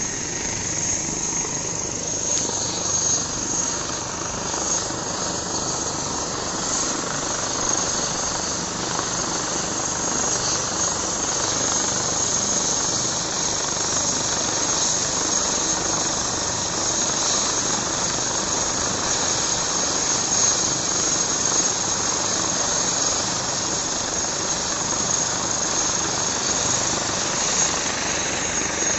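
Airbus H145 helicopter running on the pad with its rotor turning: a steady high turbine whine over the even rush of the rotor and engines.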